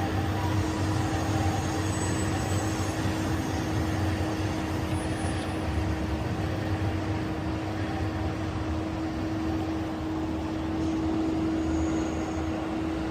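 Steady mechanical hum with a low rumble and one constant drone tone, unchanging throughout.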